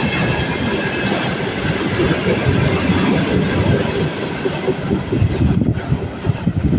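Freight train of tank cars rolling past: a steady run of wheels clattering over the rails, with a faint high whine in the first half.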